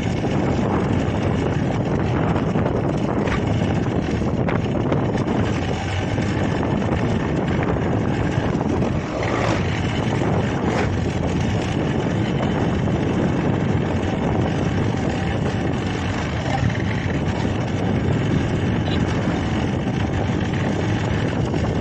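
Steady rush of wind over the microphone of a moving motorcycle, with the bike's running and road noise underneath.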